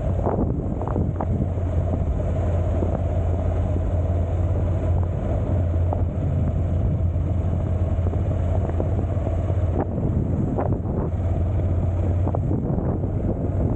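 Motorcycle riding at a steady speed: a constant engine drone under wind rushing over the microphone, with a few sharp ticks near the start and about ten seconds in.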